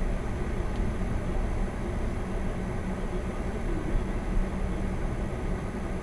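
Car driving slowly over a packed-snow road, heard from inside the cabin through a dashboard camera: a steady low rumble of engine and tyres, with two brief knocks about four seconds in.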